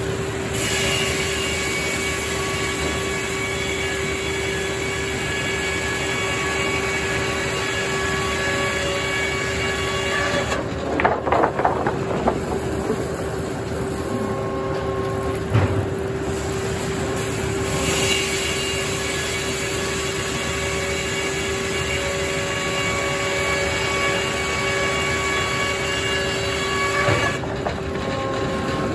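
Circular sawmill running through poplar logs: the big saw blade spins with a steady hum and whine. There are spells of clattering about eleven seconds in, briefly around fifteen seconds, and again near the end.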